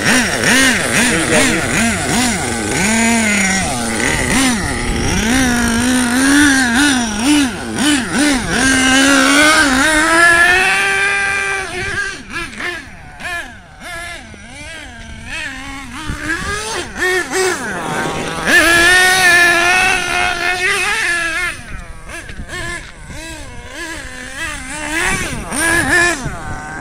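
HPI Savage XL RC monster truck's small nitro engine revving, its pitch climbing and dropping over and over as the throttle is blipped; it fades for a few seconds in the middle, then comes back loud.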